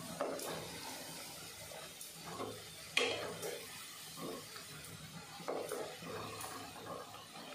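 Coconut fritters deep-frying in hot oil in a wok: a steady sizzle and bubbling. A spatula knocks and scrapes against the pan a few times, sharpest about three seconds in, as the fried pieces are turned and lifted out.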